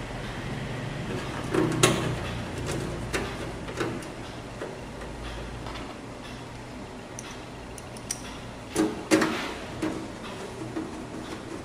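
Side cover of an eMachines ET1861 desktop tower case being fitted back on: a series of clacks and knocks, loudest about two seconds in and again about nine seconds in, with smaller taps between.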